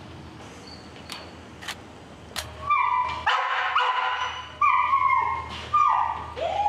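A dog whining: a run of high, repeated whimpers, each bending down in pitch, starting about two and a half seconds in after a few light clicks.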